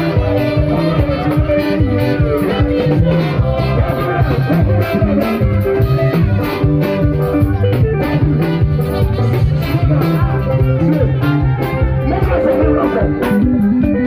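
Live band music played loud, with a steady, repeating bass line and sustained notes above it; the band includes a trombone and a saxophone.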